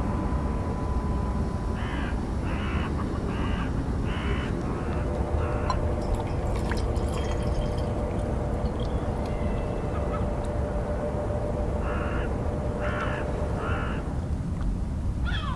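A crow cawing: a run of about six caws, then three more near the end, over a steady low rumble.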